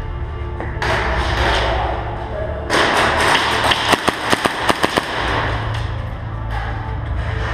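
A quick string of about seven sharp airsoft gunshots, roughly four seconds in, over a steady background hum and noise.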